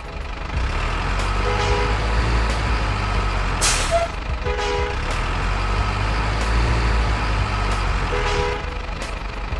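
Truck engine rumbling steadily, with a short air-brake hiss about three and a half seconds in. A brief two-note tone sounds three times over the rumble.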